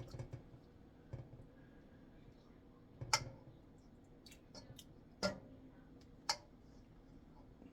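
Scattered clinks and taps of a spoon against dishes while soup is served, with three sharper knocks about three, five and six seconds in.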